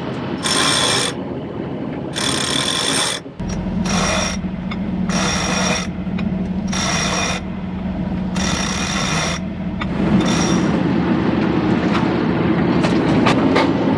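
Sailboat cockpit winch hoisting the mainsail, winding in about eight short bursts, each under a second long, that stop about ten and a half seconds in. A steady low hum runs underneath from a few seconds in.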